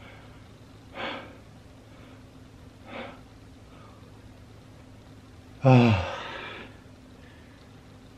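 A man breathing hard, exhausted after 100 push-ups in a row: two audible breaths, then about six seconds in a loud, voiced sigh that falls in pitch and lasts about a second.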